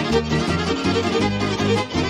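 Instrumental passage of a Mexican folk son: violins playing the melody over guitars and a plucked bass line.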